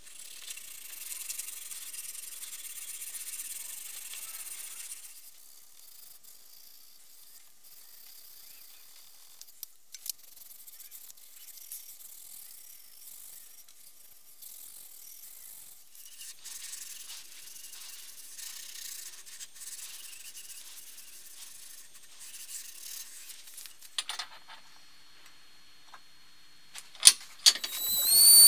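A hand-held abrasive block rubbed back and forth along a leaf-spring steel knife blade, sanding and sharpening its edge with a gritty hiss that comes and goes. Two sharp clicks near the end.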